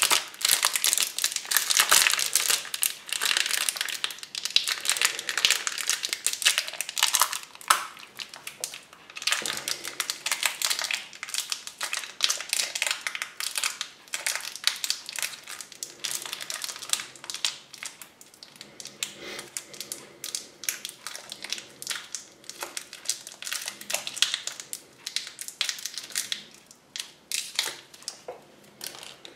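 Thin clear plastic wrapper around a small Kinder Surprise toy crinkling and rustling as it is handled and opened. It is busiest in the first half and grows sparser and quieter toward the end.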